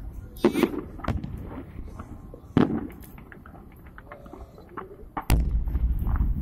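Aerial firework shells bursting: two sharp bangs, about half a second and two and a half seconds in, with fainter crackling between them. Then a loud, low rumble sets in about five seconds in.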